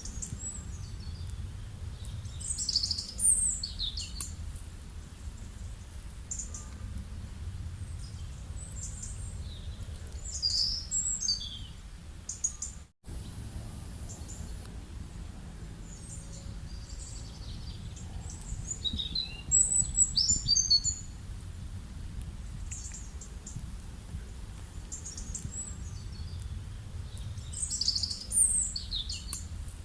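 Birds singing in four short bursts of high chirps and quick glides, spaced several seconds apart, over a steady low background rumble, with a brief dropout in the sound about halfway through.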